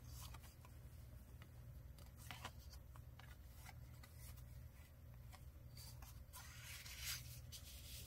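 Faint rustling of paper being handled and sorted: a few soft brushes and flicks, the clearest about seven seconds in, over a low steady hum.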